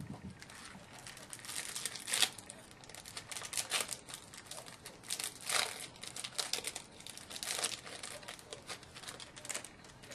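Plastic wrapping on a hockey card box or pack being crinkled and torn open, in irregular crackling bursts with a few louder rips.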